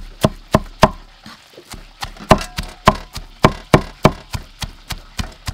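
Cleaver chopping a minced mixture with fresh herbs on a wooden chopping block: sharp knocks about three a second, pausing briefly about a second in.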